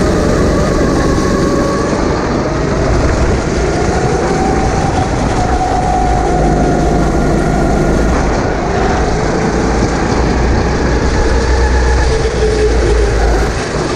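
Racing kart engine running hard, heard from on board; its note climbs under acceleration and drops as the driver lifts for corners, several times over.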